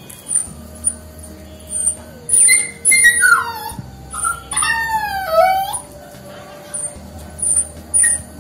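Puppy whimpering in two bouts of high, wavering whines that slide down in pitch, about two seconds in and again near the middle.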